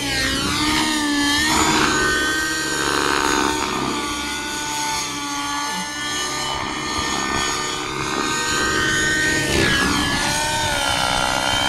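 Radio-controlled model helicopter in aerobatic flight, its engine and rotors making a high whine that swoops up and down in pitch as it flips and passes.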